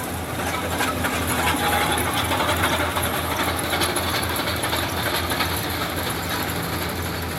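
Yanmar 70GV rice combine harvester's diesel engine running steadily under load, with the clatter of its cutting and threshing machinery; the sound swells louder for a few seconds in the middle.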